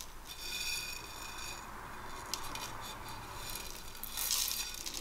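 Cumin and coriander seeds being tipped into a blender jar: faint rattles and light clicks, with a brief rustling pour about four seconds in.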